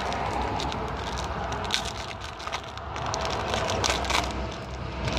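Foil wrapper of a Topps baseball card pack crinkling and tearing as it is ripped open, a run of sharp irregular crackles, over a steady low rumble of road traffic.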